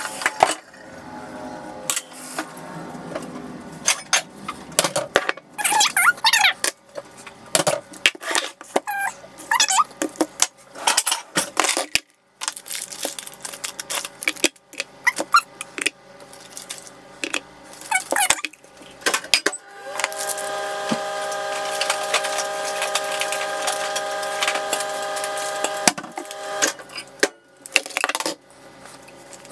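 Kitchen utensils, dishes and a plastic measuring jug being handled on a counter: scattered clinks, knocks and clatter. About two-thirds of the way in, a steady hum of several held tones runs for about six seconds and stops suddenly.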